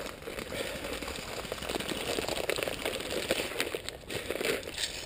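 Leaves and twigs rustling and crackling in woodland undergrowth, with many small scattered clicks.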